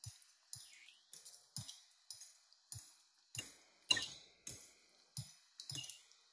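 Faint background music with a steady beat, just under two beats a second, each beat a low thud with a bright high shimmer.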